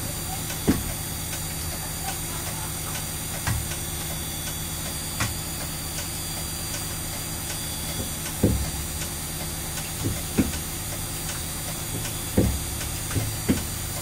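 Fire truck's diesel engine idling steadily, with about nine short knocks and clicks at irregular intervals as the joystick for the bumper-mounted water cannon is worked.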